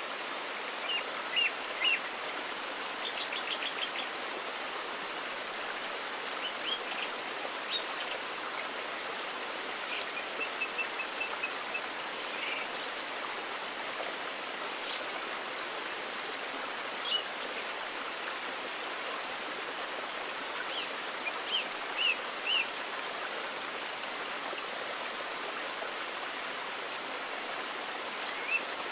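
Steady rush of a small woodland waterfall and stream, with birds chirping here and there in short runs of two or three notes.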